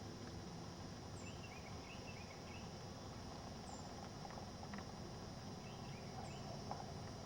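Faint birds calling: a thin, very high chirp repeats about every two and a half seconds, with short runs of lower chirps in between, over a steady background hiss.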